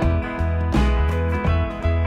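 Background music with a steady, rhythmic bass line under repeating chords.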